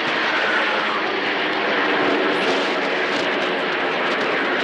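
Jet engines of the Snowbirds' CT-114 Tutor jets flying overhead: a steady, loud rushing noise with a faint falling whine in the first second.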